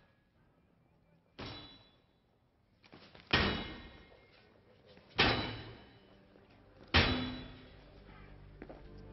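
Sledgehammer blows on a metal restroom sign fixed to a cinder-block wall: one lighter hit, then three heavy clangs about two seconds apart, each ringing out, as the sign is knocked off the wall.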